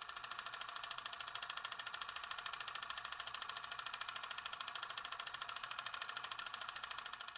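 Film projector sound effect: a rapid, even mechanical clatter of roughly a dozen ticks a second.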